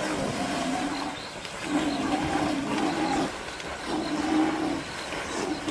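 Water churning and splashing as a kudu struggles in a river under a lion's attack. Over it runs a series of drawn-out, steady low calls, each a second or so long, with short gaps between them.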